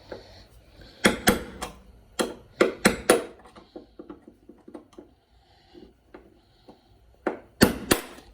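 Small hammer tapping a pin punch to drive a drilled-out rivet from a car's side skirt holder: a quick run of sharp metal strikes in the first few seconds, lighter clicks, then two more hard strikes near the end as the rivet pops through.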